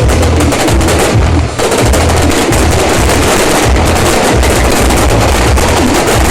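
Fireworks crackling densely, a continuous rapid rattle of many small bangs, over a pulsing low rumble.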